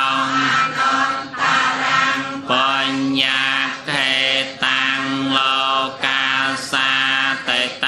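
Theravada Buddhist chant: a monotone recitation held on a steady low pitch, in short phrases with a brief break about every second.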